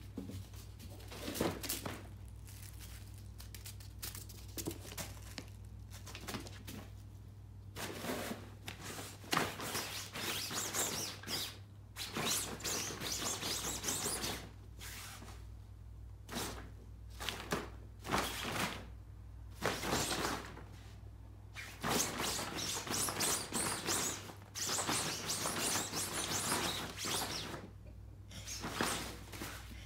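Kittens pouncing on and scrabbling at a fabric softbox: irregular bouts of rustling and scratching fabric with soft thumps, coming and going.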